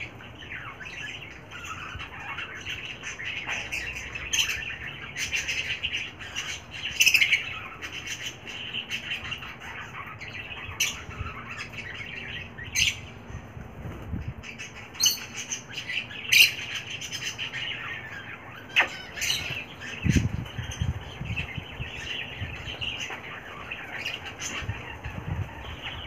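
Pet cockatiel chirping in short, scattered calls, mixed with sharp clicks and a brief low rumble about twenty seconds in.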